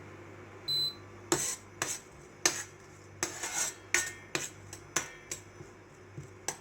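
Metal spoon clinking and scraping against a pan while stirring whole spices and fennel seeds in hot oil: about a dozen sharp, irregular clinks.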